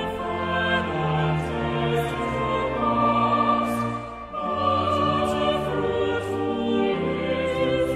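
A hymn sung by a church congregation with instrumental accompaniment, in held chords over long bass notes, with a brief breath between lines about halfway through.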